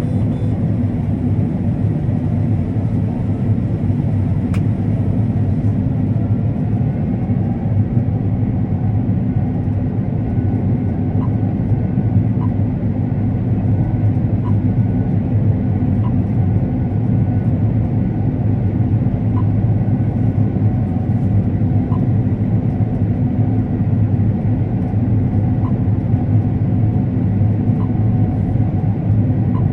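Combine harvester running steadily while harvesting corn, a continuous low drone of engine and threshing machinery with no change in pace.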